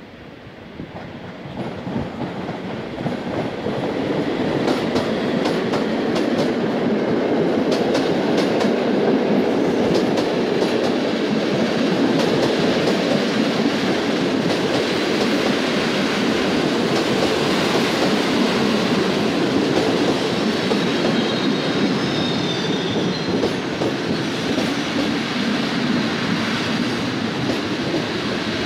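A passenger train hauled by an EP07 electric locomotive running into a station. Its rumble swells over the first few seconds as it approaches, then the coaches roll past steadily with the wheels clicking over rail joints. A few faint high squeals come about two-thirds of the way through.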